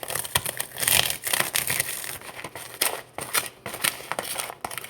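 Crunchy Cheetos being crushed into crumbs: a rapid, irregular crackling and crunching.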